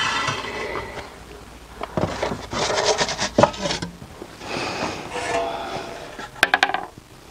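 Wooden pizza peel scraping and sliding across the stone floor of a wood-fired oven as a flatbread is slid in and the peel drawn back. The scraping comes in short strokes, with a few sharp clicks near the end.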